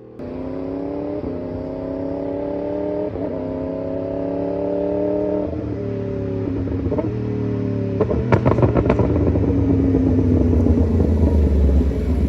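Superbike engine accelerating hard through the gears, its pitch climbing and stepping down at each upshift. After about five seconds it backs off, with a string of exhaust crackles and pops a little past the middle, then a deeper, louder engine note builds near the end.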